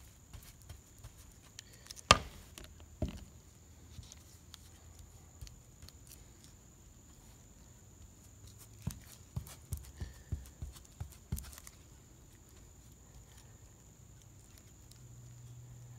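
Scattered handling knocks and taps: a sharp click about two seconds in, a softer knock a second later, and a quick run of light taps around ten seconds in.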